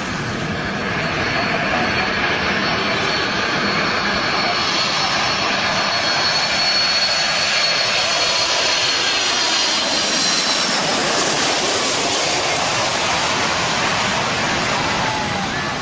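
Jet airliner engines running loud and steady, with a thin high whine that fades out about ten seconds in.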